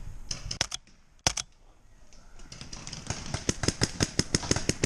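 Paintball markers firing: a few pops, a single sharp, loud shot just over a second in, then from about halfway a rapid string of shots at about six a second.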